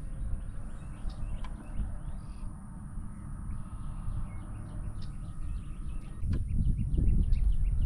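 Wind rumbling on the microphone, growing stronger about six seconds in, with small birds chirping in the background.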